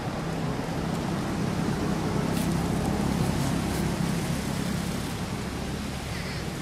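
A road vehicle passing, a low rumble that swells to its loudest about halfway through and then eases off.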